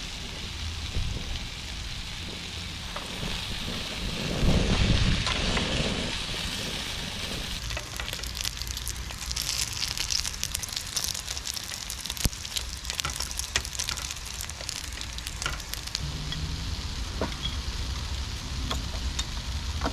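Pork and ginger dumplings frying in a pan, a steady sizzle with fine crackling pops that thicken after about eight seconds. A brief louder low rumble comes about four to five seconds in.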